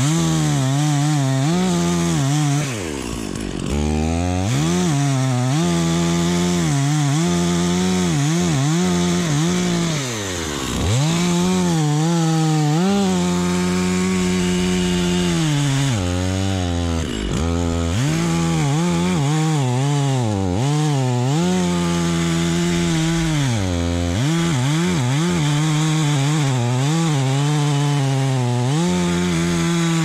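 Stihl MS 460 two-stroke chainsaw cutting into a tree trunk near full throttle, its engine note sagging and recovering as the chain bites into the wood. The revs drop briefly four times, about every seven seconds.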